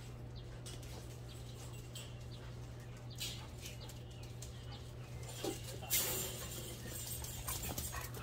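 Several Jindo dogs moving about, with scattered light clicks and a brief harsh squabble between two dogs about six seconds in, over a steady low hum.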